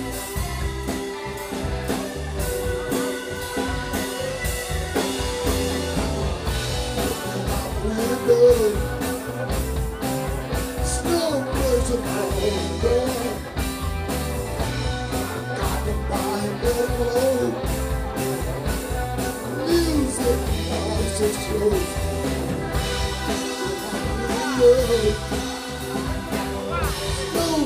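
Live blues band playing: electric guitar, keyboard, bass guitar and drum kit, with a man singing phrases into the microphone over them.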